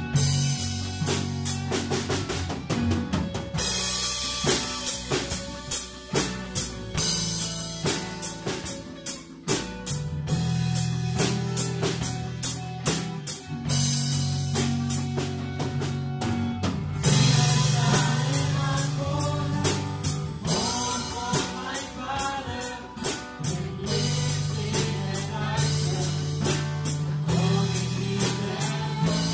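Live worship band playing: a drum kit and hand drum keep a steady beat under electric guitars. Sung vocals come in around the middle.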